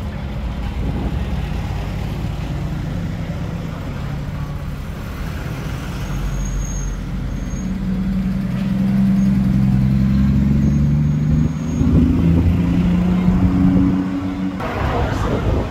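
Classic cars driving slowly past. The loudest is a Triumph TR6's straight-six engine running as it passes and pulls away, its note rising slightly.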